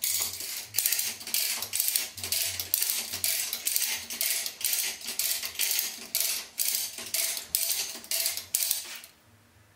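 Manual chain hoists being pulled hand over hand: the chain and ratchet clatter in quick, even strokes, about three a second, and stop about nine seconds in.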